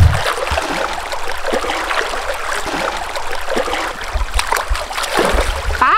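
River water running and splashing, with small splashes from arrowroot tubers being washed in it by hand.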